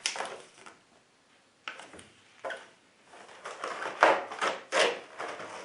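Handling noises of paperwork and the product box being moved: a few short rustles and knocks, with a denser, louder run of them about four to five seconds in.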